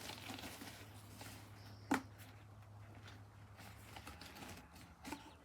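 Small clicks and rustles of a vacuum cleaner's cloth bag and plastic fittings being handled as the bag is pulled out, with one sharp click about two seconds in.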